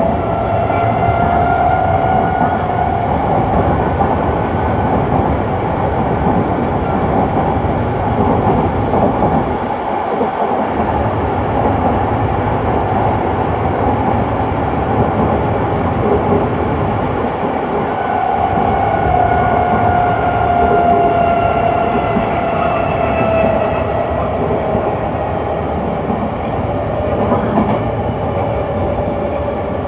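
Kintetsu 6020 series electric train running, heard from inside the carriage: a steady rumble of wheels on rail with a thin whine that swells and fades near the start and again about two-thirds of the way through.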